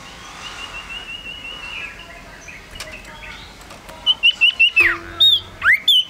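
Male common iora singing: a quick trill of repeated high notes over the first two seconds. From about four seconds in it gives a run of much louder short whistled notes, with a sharp downward slur and then an upward slur near the end.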